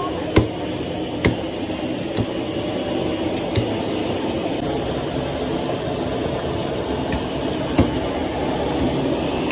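Steady rushing background noise of a busy outdoor banquet kitchen, with about five sharp clinks and knocks scattered through it.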